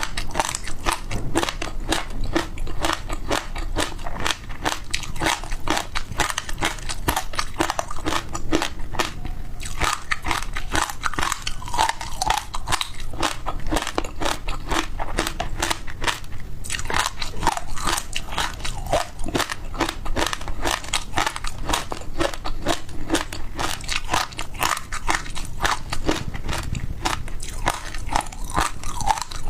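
Close-miked biting and chewing of frozen food, a dense run of crackly crunches with no pause.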